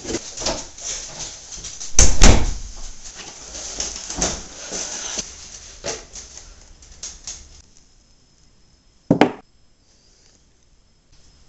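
A door handled and shut with a loud thump about two seconds in, followed by scattered knocks and rustles that die away to quiet, then one short sharp knock.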